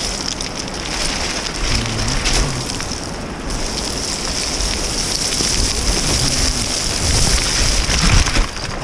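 Boots scraping and sliding down a steep slope of firm, scratchy snow: a steady hissing scrape with small irregular crunches.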